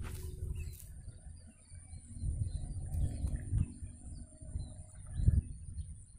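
Low wind rumble and handling knocks on the microphone, the loudest knock near the end, over faint bird chirps and calls. A thin, steady high tone comes in about a second in.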